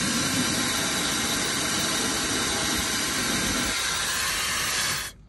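Dyson Supersonic HD07-style hair dryer running, a steady loud rush of air, switched off abruptly about five seconds in.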